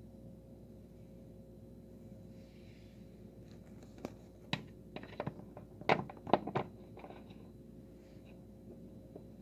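Hard plastic card holder clicking and knocking against a plastic display stand as it is set in place: a quick run of sharp clicks starting a little before halfway, the two loudest about two thirds in. A faint steady hum sits underneath.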